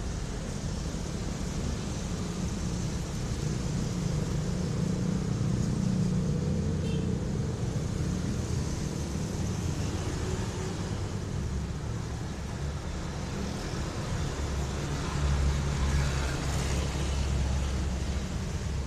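Steady low rumble of a motor vehicle running, with road noise, swelling a little about two-thirds of the way through.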